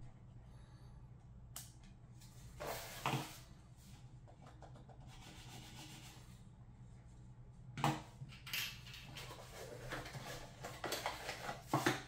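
Hands handling a wireless mouse, its cardboard box and charging cable on a wooden desk: a few sharp knocks and taps, about three seconds in, again near eight seconds and just before the end, with rustling and scraping of packaging in between.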